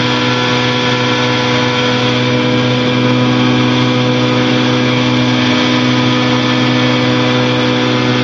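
Challenger II light aircraft's engine and propeller running at a steady cruise setting: an even, unchanging drone with no change in pitch.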